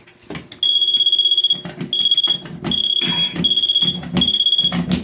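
Electronic moisture meter beeping against a wet wall: a high-pitched steady beep repeated five times, each lasting about half a second to a second, its alarm signalling a wet reading.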